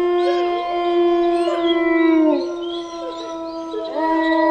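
Wolves howling in chorus: a long held howl that drops in pitch and fades about two seconds in, with other howls gliding up and down over it, and a fresh long howl rising in near the end.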